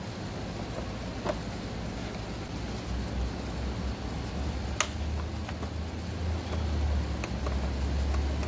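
A few sharp clicks of a screwdriver working the plastic retaining clips on a car's intake trim piece, over a steady low rumble.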